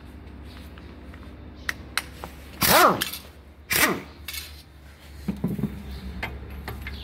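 Pneumatic impact wrench given two short bursts about a second apart, each whining up and back down in pitch. Light clicks and knocks of tools and brake parts being handled come before and after.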